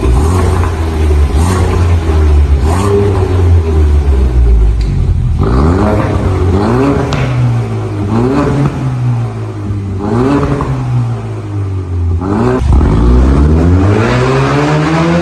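Ford Mustang 2.3 L turbocharged four-cylinder engine heard through a modified aftermarket exhaust, running with a steady low rumble, then revved in a series of short blips from about five seconds in, with a longer climbing rev near the end.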